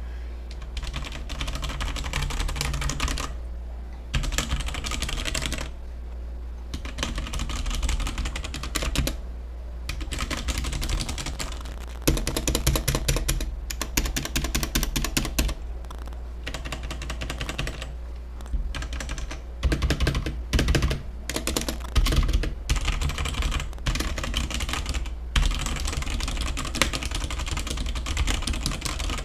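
Typing on a Leaven K620 mechanical keyboard with red linear switches: rapid key presses clacking in runs several seconds long, broken by brief pauses, over a steady low hum.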